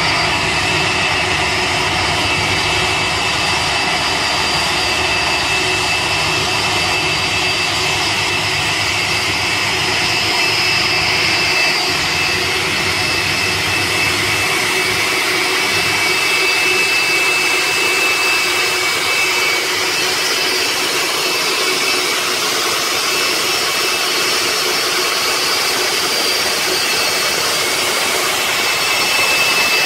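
Boeing 747-400's four Rolls-Royce RB211 turbofans at low taxi power, a steady jet whine over a broad rush of engine noise as the airliner rolls slowly past. The low rumble eases off about halfway through while the high whine holds.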